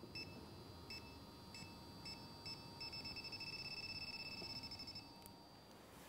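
Handheld corona-discharge refrigerant leak detector beeping faintly, first in separate beeps about every half second, then quickening into near-continuous beeping from about three seconds in until near the end. The alarm signals R134a refrigerant picked up at a leaking condenser.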